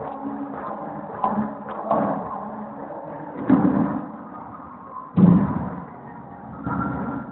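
Two heavy thuds of dancers' feet stomping on a wooden floor, about three and a half and five seconds in, the second louder, over faint muffled music.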